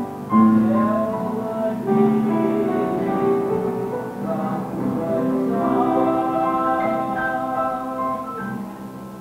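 Church worship music: voices singing long held notes over keyboard accompaniment, softening a little near the end.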